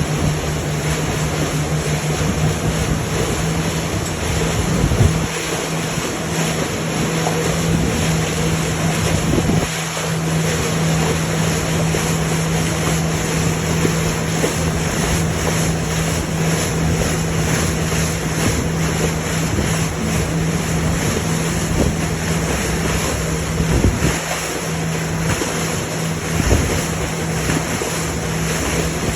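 Lake water washing and splashing, with wind buffeting the microphone, over a steady low engine hum.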